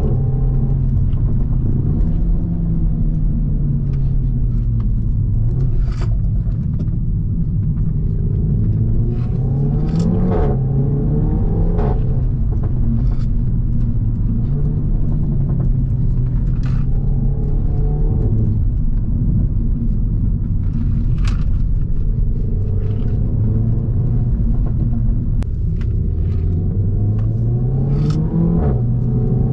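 Renault Mégane 4 RS 280's turbocharged 1.8-litre four-cylinder running through a catless exhaust while driving. The engine note climbs and drops a few times, with a long steady stretch in between, and a sharp crack from the exhaust comes every few seconds.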